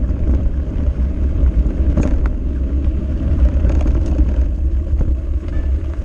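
Mountain bike descending a rocky dirt singletrack: a steady low rumble of wind on the microphone and the knobby tyres rolling over dirt, with a few sharp knocks as the bike rattles over rocks, the clearest about two seconds in.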